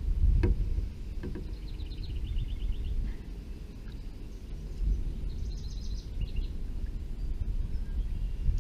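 Steady low rumble of wind on the microphone, with a few short, rapid bird trills over it, about two seconds in and again past the middle. A couple of sharp clicks come within the first second and a half.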